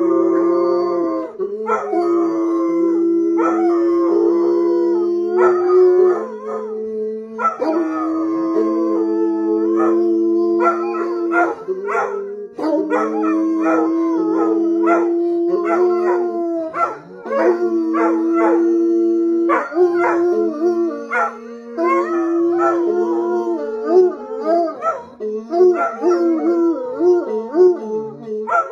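Several hounds, bloodhounds among them, howling together in long, overlapping held howls, each voice breaking off every few seconds and starting again. In the second half, shorter, quicker cries mix in among the long howls.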